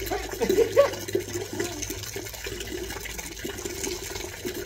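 Water pouring and splashing over a rottweiler's coat as it is bathed, with a few louder splashes in the first second.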